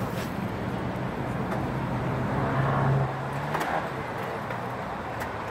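City road traffic, with one motor vehicle passing closer: its low engine hum swells to its loudest about three seconds in, then fades.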